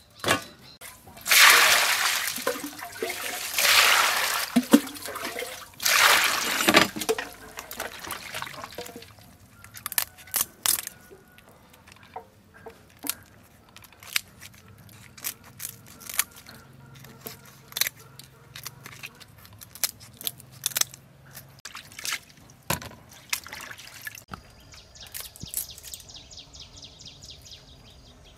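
Water splashing and sloshing loudly, three times in the first seven seconds, as live shrimp go into a steel bowl of water. Then a run of short sharp snips of kitchen scissors cutting the shrimp, with drips of water.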